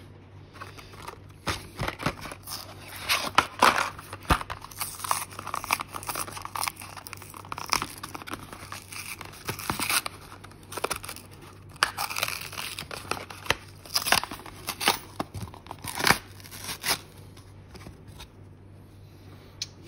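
Blister pack being opened by hand: the paper-card backing torn and peeled away from the clear plastic blister, in irregular crackles and rips that die down near the end.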